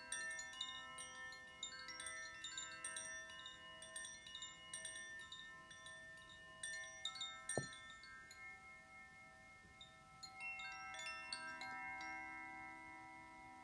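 Tuned chimes ringing in many overlapping, shimmering tones, struck in quick irregular runs that thin out and fade. A fresh run of strikes comes in about ten seconds in, and a single sharp click sounds midway.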